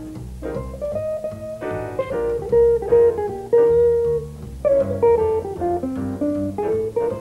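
Jazz trio playing: an archtop electric guitar plays single-note melodic lines, with upright bass and piano accompanying.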